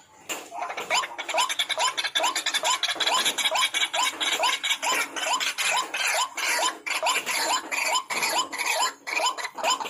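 White-breasted waterhen (ruak-ruak) calling: a rapid, harsh run of short rising croaking notes, about three a second, over a grating chatter, starting after a brief break at the very beginning.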